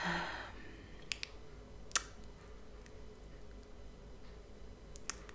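A few faint, sharp clicks spaced irregularly, the loudest about two seconds in, over quiet room tone, after a short soft noise at the very start.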